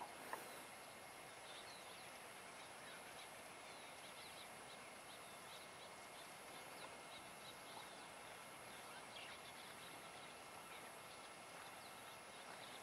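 Faint outdoor ambience: a steady hiss of background with scattered soft bird chirps and a thin, steady high insect whine.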